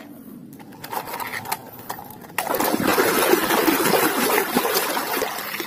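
Light clicks of plastic toys being handled, then about two and a half seconds in, a steady rush of splashing water as a muddy plastic toy car is rinsed in it.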